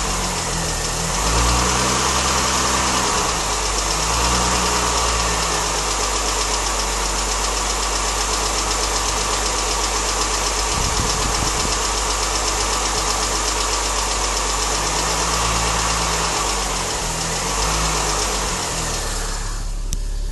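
Mini Cooper S engine running at idle with a fast, steady ticking or tappety noise, which the owner thinks comes from around the timing chain.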